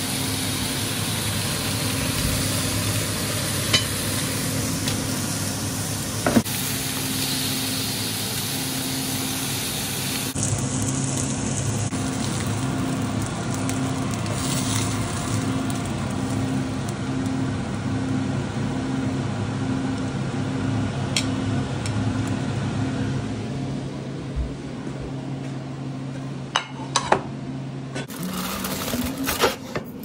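Steaks and mushrooms sizzling on a griddle pan over a gas hob, with a steady low hum underneath. A few short metallic clinks of utensils or pans come through.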